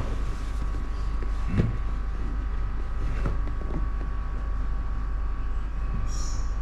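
Steady low hum and hiss with a faint constant tone, and two soft knocks about one and a half and three seconds in as a cardboard reel box is handled.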